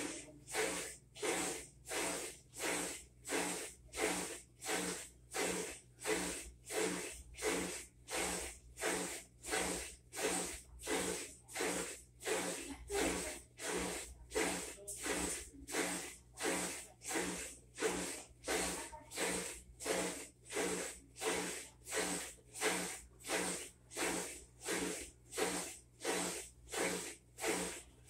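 Whirlpool WTW4800XQ2 top-load washer agitating: a regular swish of water with a low hum on each stroke, about one and a half strokes a second.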